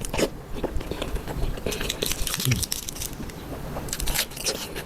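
A person biting and chewing food close to the microphone, with repeated crisp crunching clicks.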